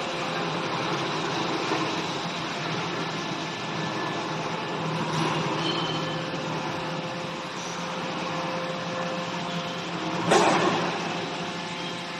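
Excavator engine running steadily, with one short, louder burst of noise about ten seconds in.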